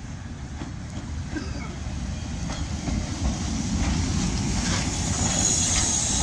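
LMS Black 5 steam locomotive 45305 and its train rolling up alongside the platform, the low rumble of wheels on rails growing louder as it nears. A hiss of steam rises over the last second or so.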